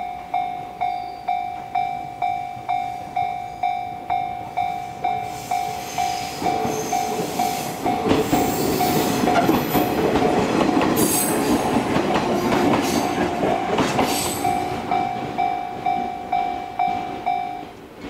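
Japanese level-crossing warning bell ringing a steady 'kan-kan' about twice a second, stopping just before the end. An Echizen Railway electric train runs through the crossing from about six to fourteen seconds in, its passing rumble and high-pitched wheel noise rising over the bell.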